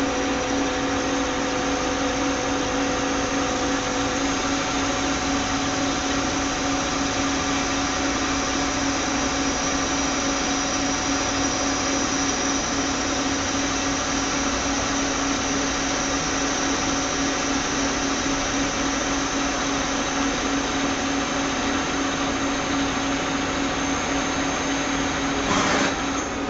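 CNC machine running steadily while machining: a continuous mechanical whir with a steady low hum and a high whine, and a brief louder burst near the end.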